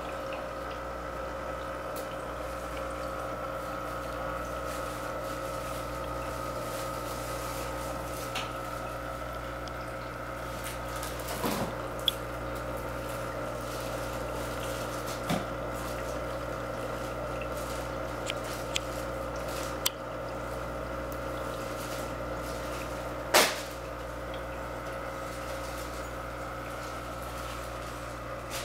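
Aquarium pump and filter running: a steady motor hum with water splashing and moving at the surface. A few short knocks break in, the loudest about two-thirds of the way through.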